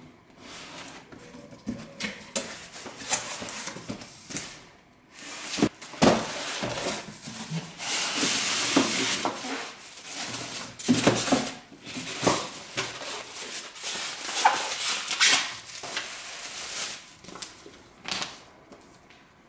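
Unboxing handling noise: a cardboard box opened and a contact grill drawn out of polystyrene packing, with plastic wrap crinkling and rustling and occasional knocks and clicks of the cardboard, foam and grill. The paper manual is handled near the end.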